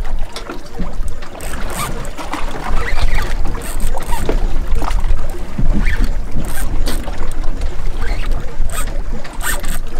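Boat on open water: a steady low rumble of a running boat with noisy wash and scattered short knocks.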